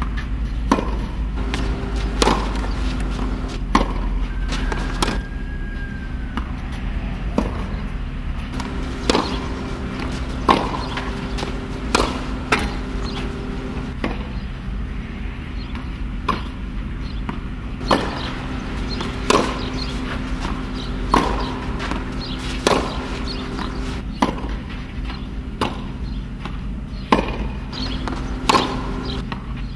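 Tennis balls struck by a racket and bouncing on a clay court during a rally, a sharp pop every second or so, over a steady low hum.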